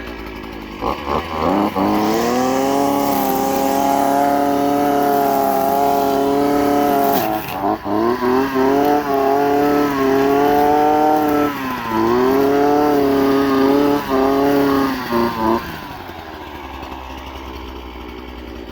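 Parkside PBK 4 B3's small two-stroke petrol engine driving its grass-trimmer head. It runs at idle, is throttled up to high revs about 1.5 s in and held there, with a few brief dips and blips in the middle. About 16 s in it drops back to idle.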